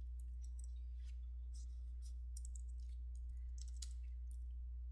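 Typing on a computer keyboard: soft, irregular key clicks over a steady low electrical hum.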